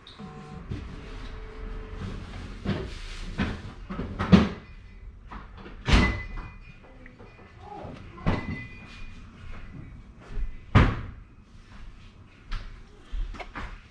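Kitchen knife knocking on a cutting board while slicing hot dogs, a series of irregular sharp knocks a second or two apart, with softer handling sounds between.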